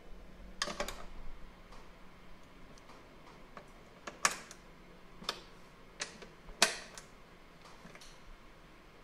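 Quarter-inch socket and extension clinking on the strut top mount nuts and studs as they are hand-tightened: a few quick clicks about a second in, then single sharp metal clinks, the loudest about four and six and a half seconds in.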